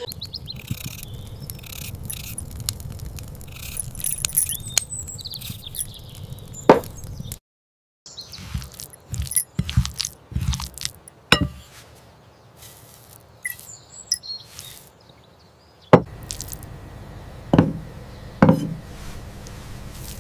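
Kitchen sounds: a string of clinks, knocks and scrapes like crockery and utensils being handled, over a low steady background. Several sharp knocks stand out, and the sound cuts out for about half a second some seven seconds in.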